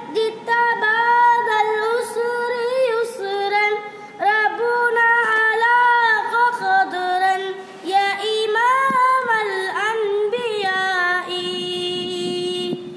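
A boy singing an Arabic naat unaccompanied, in one voice with gliding, ornamented turns of melody. Near the end he holds one long, steady note.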